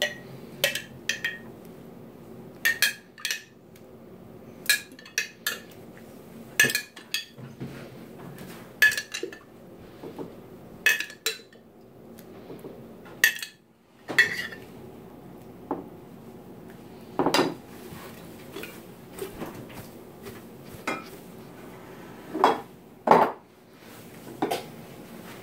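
Metal spoon clinking and scraping against a glass jar and glass baking dishes while scooping and spreading tomato sauce: irregular sharp clinks and taps.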